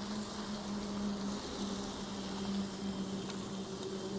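Chicken pieces frying in oil in a steel kadai while being stirred with a steel ladle, a hiss with a couple of light clicks of the ladle near the end. A steady low hum runs underneath.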